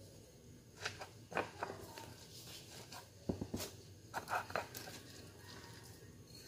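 Scattered light knocks and clicks of kitchen things being handled, about half a dozen spread over a few seconds.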